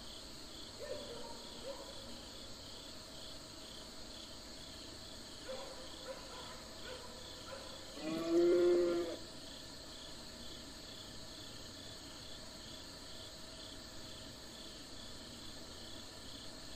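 Domestic cattle in a herd: one loud moo lasting about a second, about halfway through, after a few fainter, shorter calls. Insects chirp steadily in the background.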